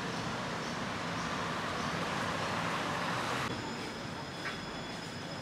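Road traffic noise from cars driving along a city street, a steady wash of tyre and engine noise. About three and a half seconds in it cuts off suddenly to a quieter street background with a faint, steady high whine.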